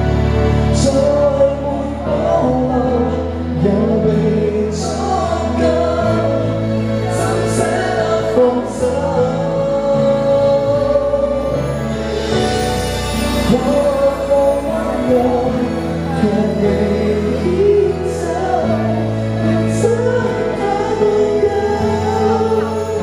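Cantopop song playing over a PA backing track, with a steady changing bass line and melody; a male singer sings into a handheld microphone near the end.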